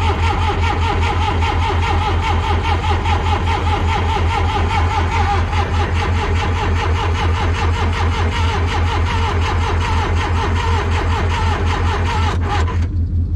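Electric starter cranking the John Deere 310C backhoe's diesel engine in a steady rhythm, turning it over for about 13 seconds without it catching, then cutting off abruptly near the end.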